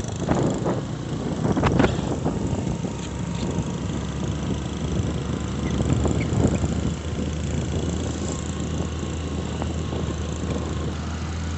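A vehicle on the move, a steady low engine and road rumble with a few knocks in the first couple of seconds, the low rumble getting stronger about halfway through.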